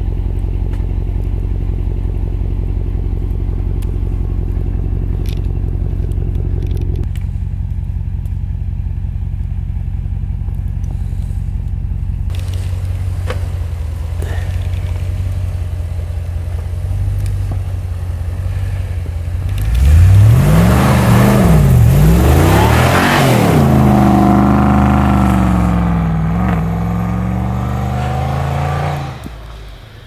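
Ram 2500 Power Wagon's 6.4-litre HEMI V8 running at a steady low idle, then, about two-thirds of the way through, revving loudly up and down twice and running at changing revs for several seconds before dropping away near the end.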